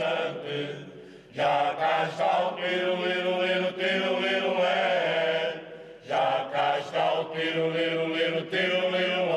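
Mixed men's and women's folk choir singing unaccompanied in the slow, sustained polyphonic style of Alentejo cante. The voices hold long notes in two phrases, with brief breaks about a second in and about six seconds in.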